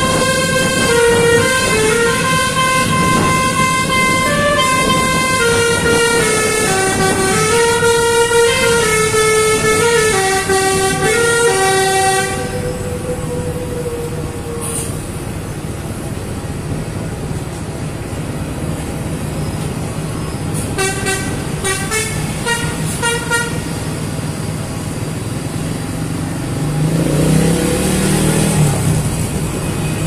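Bus telolet horn (a Basuri multi-tone musical air horn) playing a koplo-style melody of quick stepping notes for about twelve seconds, then stopping. The bus engine keeps running, with a quick run of short horn toots a little after twenty seconds and a low note that rises and falls near the end.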